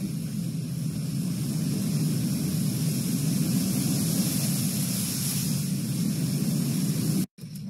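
Steady rumble of a vehicle driving through floodwater in the rain, heard from inside the cab, with a hiss of water spray and rain. The sound cuts out abruptly near the end.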